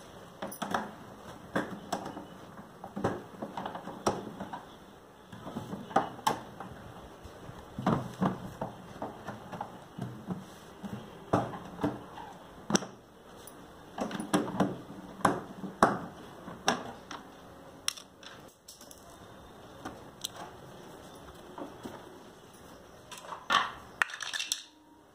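Irregular plastic clicks, knocks and rattles as a screwdriver and hands work the plastic back panel of an RO water purifier cabinet loose and take it off.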